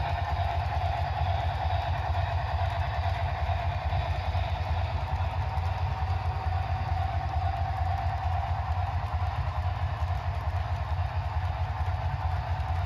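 Model freight train running steadily: an even hum with a low rumble underneath, no chuffing rhythm.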